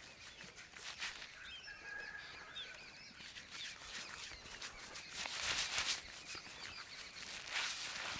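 Hands rubbing and stroking over hair and skin during a head massage, a series of brushing, rustling strokes that are loudest in the second half. Birds chirp faintly in the background.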